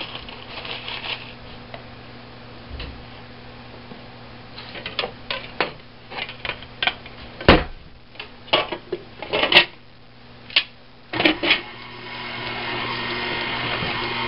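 Brown sugar packaging being handled: the emptied box and its wrapping crinkled and folded in a string of sharp crackles and rustles. Near the end a steady sound starts up and grows louder.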